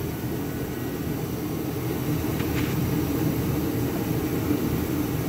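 Steady low rumbling background noise with no clear pitch, like a fan or machinery running.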